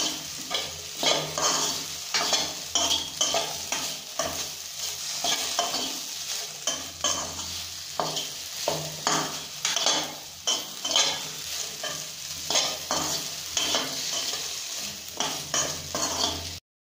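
Sliced okra frying in a pan with a steady sizzle while a metal spoon stirs and scrapes it, in repeated strokes about once or twice a second. The sound cuts off suddenly near the end.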